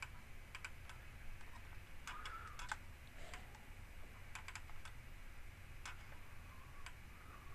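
Faint, scattered clicks of a computer mouse and keyboard, some in quick pairs, over a low steady hum.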